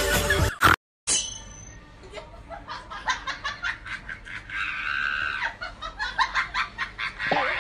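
Music and a voice for the first moment, cut off short, then a person laughing softly in many short, repeated breathy laughs.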